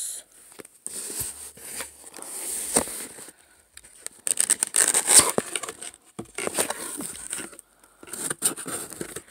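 Cardboard box being opened and handled by hand: irregular rustles and knocks of the flaps and sides, busiest about four to five seconds in and again near the end.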